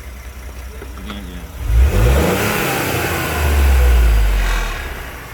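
Ford Edge ST's twin-turbo V6 revving up about two seconds in, its pitch rising, then holding a loud low drone that fades near the end.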